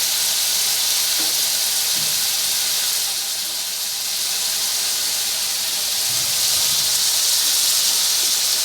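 Thin strips of pointed gourd (potol) sizzling in hot mustard oil in a pan, partly fried: a steady high hiss.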